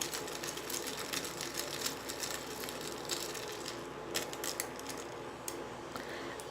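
A spoon stirring crushed ice and soda in a glass: a steady run of light clicks and clinks, fewer toward the end.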